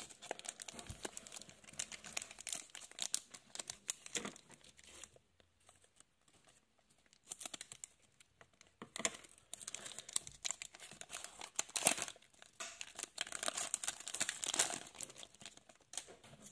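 Foil wrapper of a Pokémon Fusion Strike booster pack being crinkled and torn open by hand: irregular crackling, with a quiet pause of about two seconds about a third of the way in.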